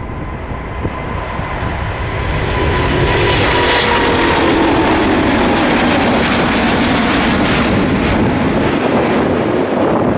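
Airbus A350-900's twin Rolls-Royce Trent XWB jet engines at takeoff power on departure. The engine noise grows louder about two and a half seconds in and then holds steady, with a thin fan whine slowly falling in pitch.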